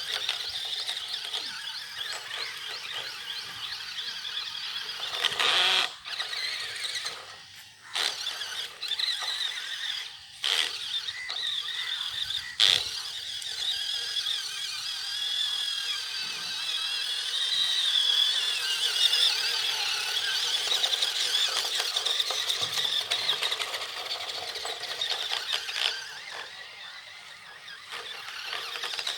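Toy RC rock crawler's small electric motor and gearbox whining as it drives, the pitch wavering up and down with throttle and load. A few sharp knocks come from the car clattering over stones.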